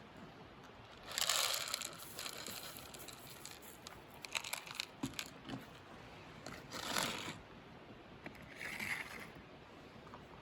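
A cat eating, with crunching and chewing clicks, and a few louder rustling bursts, the longest about a second in.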